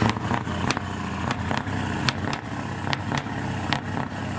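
Heavy truck's diesel engine running steadily at low revs as the truck creeps along, with scattered sharp clicks and crackles throughout.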